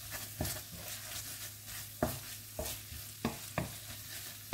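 Wooden spatula stirring pork belly and red curry paste around a nonstick wok, with a light sizzle of frying under it. The spatula knocks and scrapes against the pan about half a dozen times at irregular intervals.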